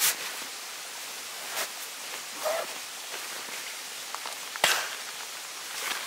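Nylon camping gear being handled in a tent doorway: short rustles and sharp snaps, the loudest about two-thirds of the way in, over a steady background hiss.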